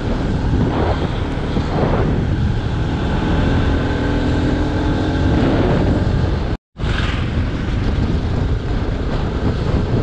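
Sport motorcycle riding along a road: its engine running under steady throttle, heavily mixed with wind noise on the microphone. The sound drops out completely for a split second about two-thirds of the way in.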